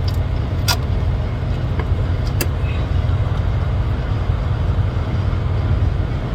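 Steady low rumble of an idling diesel truck engine, with two light clicks, one under a second in and another about two and a half seconds in.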